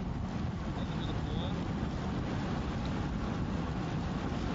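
Steady low rumble of a moving vehicle's engine mixed with wind rushing past the microphone, the sound of a camera vehicle pacing a racing cyclist.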